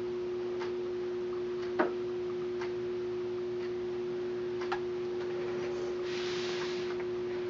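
A steady hum running throughout, with a few light clicks and taps from a chopstick being drawn through stiff soap batter in a slab mold, the sharpest about two seconds in. A brief soft rustle comes near the end.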